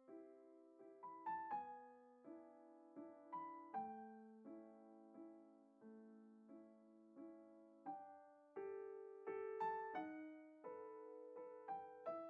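Quiet solo piano music: a slow melody of single struck notes over chords, one or two notes a second, each ringing and fading away.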